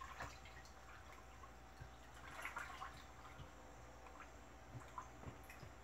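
Faint stirring of an oil-and-ethanol mixture in a large plastic jug, with soft liquid sounds and light clicks of the stirring utensil, a little louder about two and a half seconds in.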